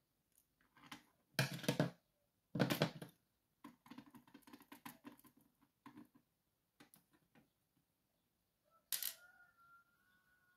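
Small metal lock-cylinder parts being handled with tweezers over a plastic parts tray: two louder clatters about one and a half and two and a half seconds in, then a run of light clicks and ticks.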